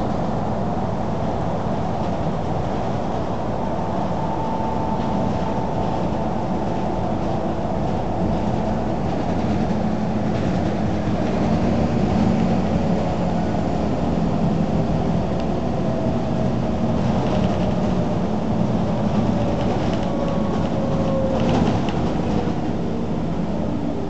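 Scania single-deck bus under way, heard from inside the passenger saloon: steady engine and road noise, with a faint whine that slowly falls in pitch in the second half and a few rattles near the end.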